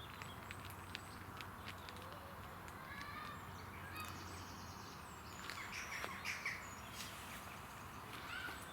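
Small birds chirping faintly over a steady low background hum, with a brief flurry of chirps a little past halfway.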